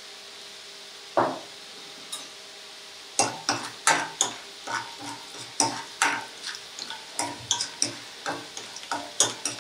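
A steel ladle stirring almond pieces frying in ghee and oil in a nonstick wok, with quick knocks and scrapes against the pan about two or three times a second from about three seconds in. Under it runs a steady, faint sizzle, with a single knock about a second in.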